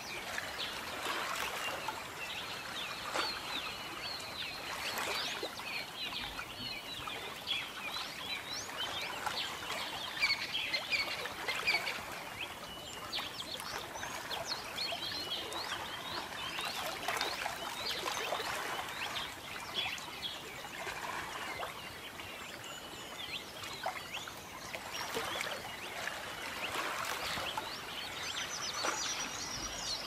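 A chorus of many small birds chirping and twittering without a break, over a soft steady rush of water.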